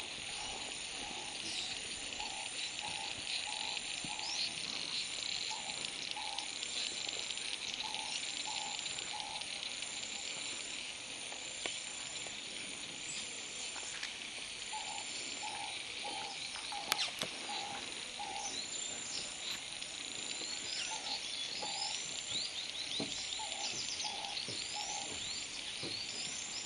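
Steady chorus of insects with a constant high whine, small birds chirping over it, and an animal's short low call repeated in runs of several notes, again and again. One sharp click comes about two-thirds of the way through.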